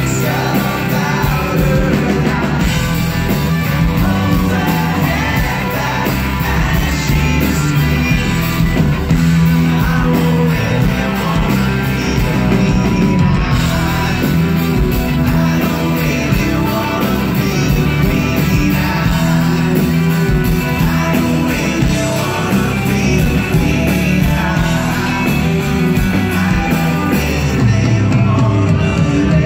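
Live rock band playing a song: electric guitars and a male lead singer over the band, loud and steady throughout.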